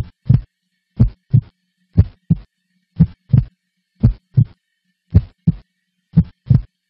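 Heartbeat sound effect: a steady lub-dub double thump repeating about once a second.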